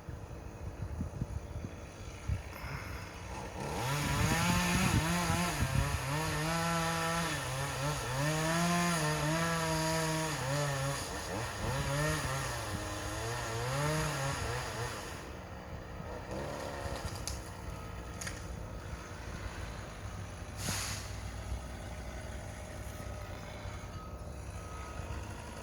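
Two-stroke chainsaw running, its engine speed rising and falling repeatedly for about ten seconds, then dropping back to a lower, steadier sound. A single sharp crack comes near the end.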